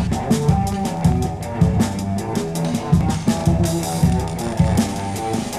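Rock music with a steady drum-kit beat, bass and guitar, no vocals.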